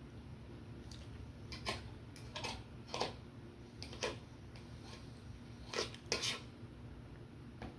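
Cutlery clinking and scraping against a plate during eating, in about seven short, uneven clatters, the loudest about three seconds in and about six seconds in, over a steady low hum.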